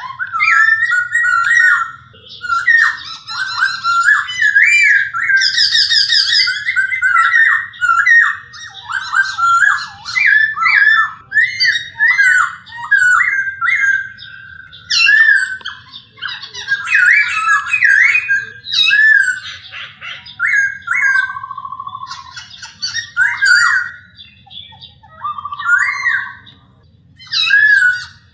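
A laughingthrush (poksay) singing a long, varied song of rapid warbled whistles that sweep up and down, with a buzzy trill a few seconds in and a couple of short flat low whistles in the later part.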